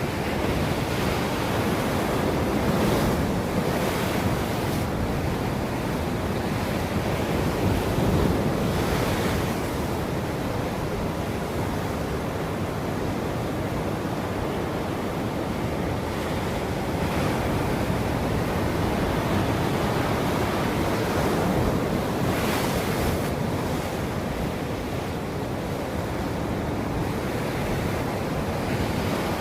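Ocean waves breaking and washing on a shore, a continuous surf with several swells in the hiss, the clearest about 3, 8 and 22 seconds in. Wind runs along with it.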